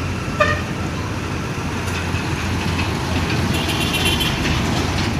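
Steady background noise like passing road traffic, with a low hum, and a short pitched toot about half a second in.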